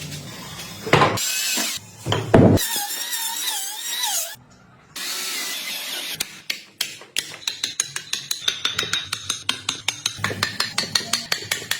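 Woodworking tool sounds in quick cuts: a few sharp knocks, then a wavering whine, then a fast, even run of sharp clicks, about six a second, like a ratchet.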